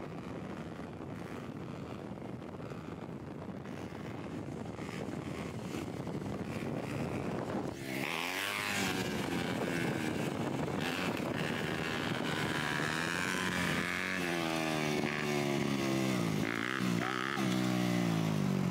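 Dirt bike engine during wheelies. At first it is a steady rushing noise; from about eight seconds in, the revs clearly climb and drop again and again as the throttle is worked.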